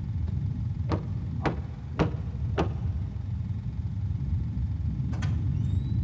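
Four knocks on a door, about half a second apart, over a steady low rumble, with one more faint knock near the end.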